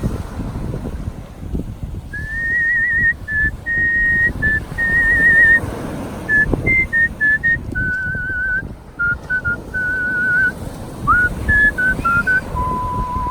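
A man's artistic whistling: a slow melody of clear, held notes with vibrato that starts about two seconds in and moves lower in the second half. A steady low rumble of background noise runs underneath.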